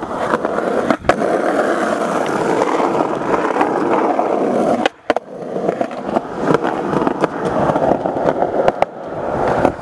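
Skateboard wheels rolling over pavement, a steady rolling rumble, with a sharp click about a second in and a brief break near the middle.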